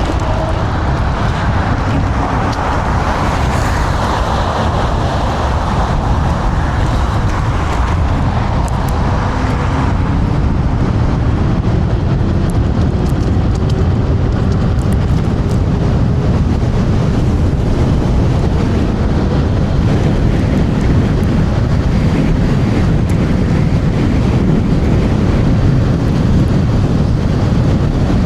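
Wind buffeting the rider's microphone on a fast-moving electric scooter: a loud, steady, deep rush that grows a little louder toward the end. Faint wavering tones come and go through the first ten seconds or so.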